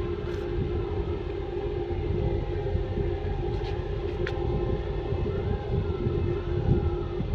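Ship engines and machinery running: a steady low rumble under a constant droning hum.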